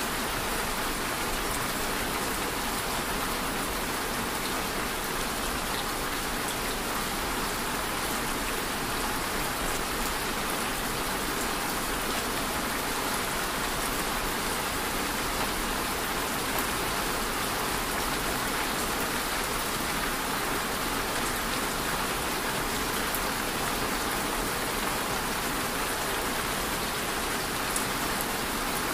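Steady rain falling: an even, unbroken hiss of drops with a few sharper drop ticks scattered through it.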